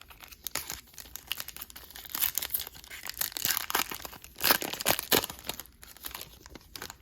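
Foil trading-card pack wrapper being torn open and crinkled by hand: a dense, irregular crackle, loudest in the middle.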